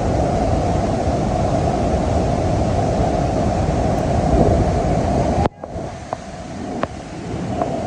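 Heavy, steady rush of falling water from the Bridal Veil Falls at Niagara, with wind buffeting the microphone. About five and a half seconds in it cuts suddenly to a quieter water rush with a few faint clicks.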